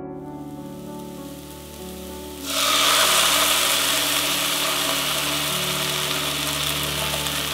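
Chopped onion, bell peppers and garlic frying gently in oil in a pot, breaking about two and a half seconds in into a loud, steady sizzle as strained tomatoes (passata) hit the hot pan.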